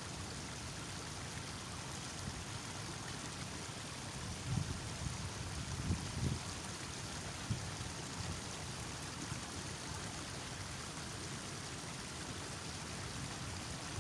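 Steady rushing outdoor noise of a fast-flowing river and strong wind, with a few brief low rumbles of wind buffeting the microphone about halfway through.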